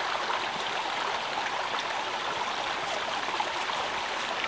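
Small mountain stream running over rocks: a steady rush of water.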